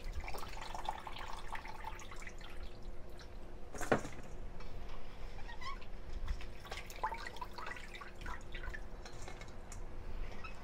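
Hands swishing raw shrimp in a stainless-steel bowl of water, with small splashes and drips and one sharp knock about four seconds in.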